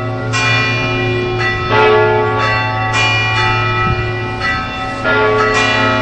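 Several large church tower bells ringing together, strokes falling unevenly a few times a second, each ringing on with long overlapping tones over a steady low hum.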